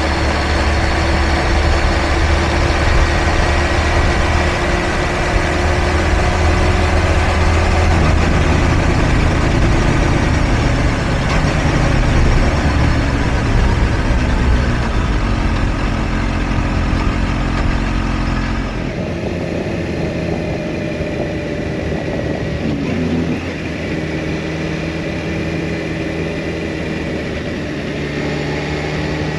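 Kawasaki Ninja H2 SX's supercharged inline-four running steadily while the motorcycle cruises, under heavy wind and road rumble. About two-thirds of the way through, the sound changes abruptly to a thinner engine note with much less low rumble.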